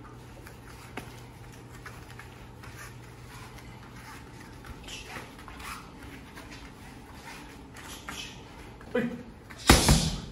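Quiet gym room tone with faint breaths and rustling from shadowboxing, then near the end a loud smack of a boxing glove striking a focus mitt.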